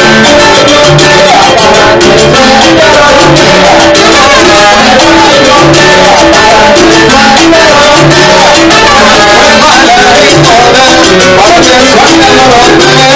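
Live salsa band playing: a steady, busy rhythm on timbales and congas under a repeating melodic line, recorded very loud.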